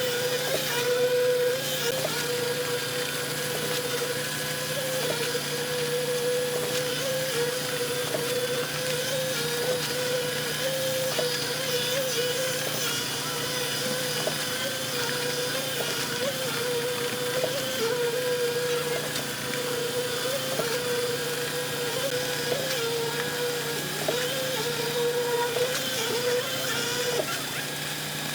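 Construction machinery running steadily: an engine drone with a whine that wavers slightly in pitch.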